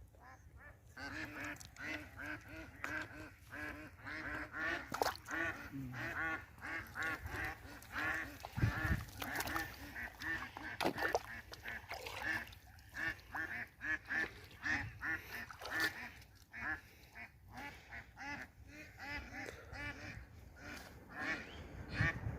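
A flock of domestic waterfowl calling without a break, many short overlapping quacks and honks several a second, with a few sharp knocks in between.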